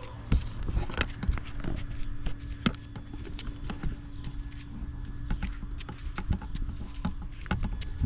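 Footsteps on a concrete sidewalk: a string of irregular light taps over a steady low rumble.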